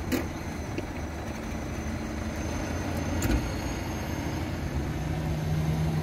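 Steady low rumble of street traffic, with a faint steady engine hum coming in near the end and two light clicks.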